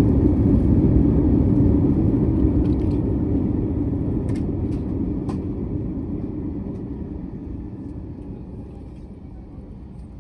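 Cabin noise of an Airbus A321-200 slowing on the runway after touchdown: a loud, steady low rumble that fades gradually as the aircraft decelerates, with a few faint clicks and rattles partway through.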